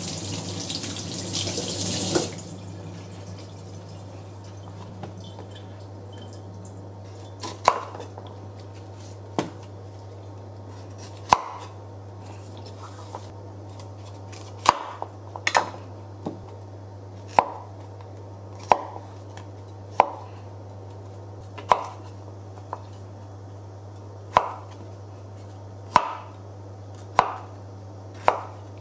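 Kitchen knife cutting broccoli on a wooden cutting board: about fifteen sharp knocks of the blade meeting the board, one to two seconds apart, each with a short ring. A rush of running water fills the first two seconds and stops abruptly, and a low steady hum runs underneath.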